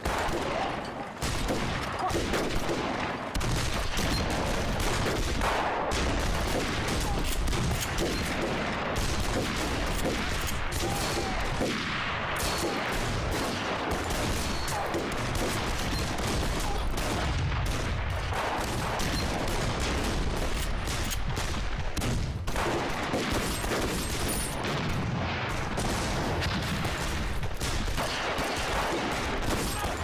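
Heavy, continuous gunfire from many rifles, shots overlapping without a break, as in a pitched battle.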